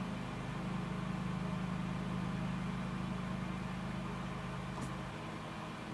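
Steady low hum of background room noise, which drops away about five seconds in, just after a faint click.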